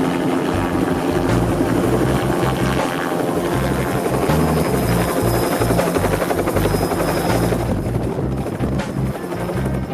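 Helicopter rotor and turbine noise, mixed with background music that has a moving bass line.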